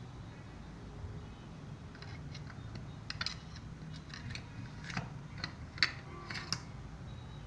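Knives and a carving fork with wooden handles and metal blades clicking against a wooden knife block as they are handled, pulled out and slotted back in. It is a loose string of light clicks starting about two seconds in, the sharpest near the end.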